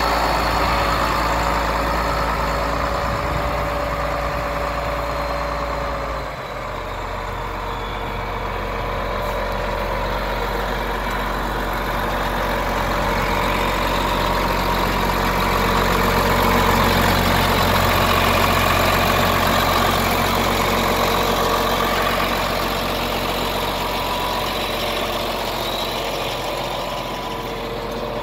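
John Deere 4430's six-cylinder turbocharged diesel engine running steadily. A faint whistle in the first six seconds fades out.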